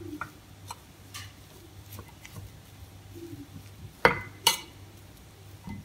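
A utensil clicking and scraping in a stainless-steel pot as a soft mash of cooked grain and vegetables is stirred together, with two louder knocks about four seconds in.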